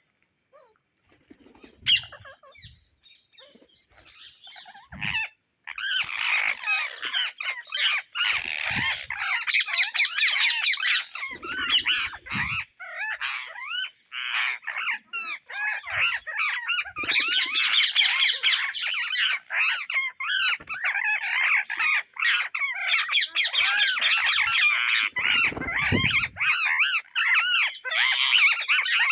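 Indian ringneck parakeets chattering and squawking. After a quiet start with a few faint clicks, a dense stream of rapid, high calls begins about five seconds in and keeps going, with a few low thumps mixed in.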